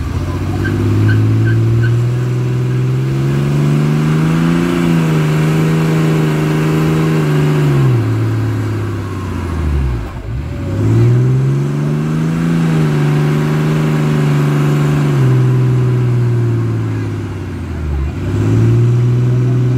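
Cummins 6.7-litre inline-six turbo-diesel of a 2017 Ram 2500 held at high revs during a burnout, rear tyres spinning with a steady hiss. The engine climbs and holds, falls off about eight seconds in, climbs and holds again, then falls off near the end and comes straight back up.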